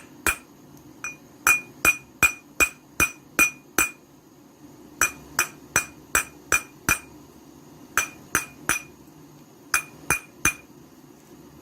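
A small hammer tapping lightly on a heated brass boiler. The sharp metallic taps come in runs of several, about two to three a second with short pauses between, each ringing briefly at a high pitch. The tapping straightens the boiler's bent, softened brass.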